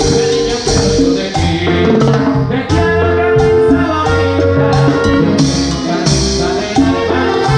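Live Latin dance band playing, with timbales struck with sticks close up over a bass line and sustained chords.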